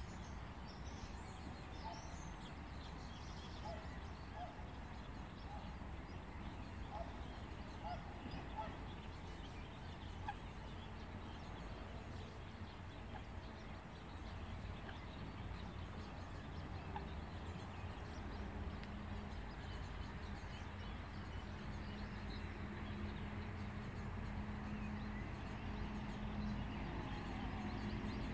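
Eurasian coot chicks peeping: short, scattered calls, most of them in the first half, over a steady low background rumble. A steady low hum joins about two-thirds of the way in.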